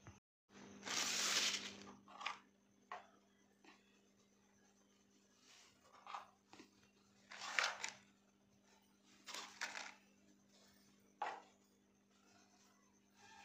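Short scraping and rustling noises of powdered spices being spooned from their containers into a pan of buttermilk. The first, about a second in, is the longest and loudest, followed by about half a dozen brief ones, over a faint steady hum.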